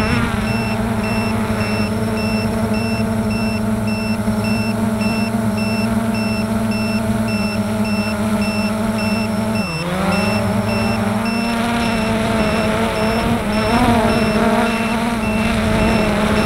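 Model aircraft's motor and propeller heard from a camera on board: a steady droning note that dips sharply in pitch just under ten seconds in and climbs back. Two faint steady high tones sit underneath.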